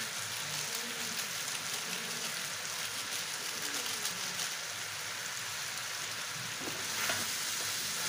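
Chicken and potato filling sizzling in oil in a frying pan, a steady frying hiss. The spatula scrapes through it a couple of times near the end.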